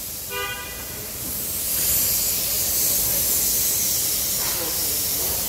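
Steady high hiss that grows louder about a second and a half in and then holds, with a brief pitched tone near the start.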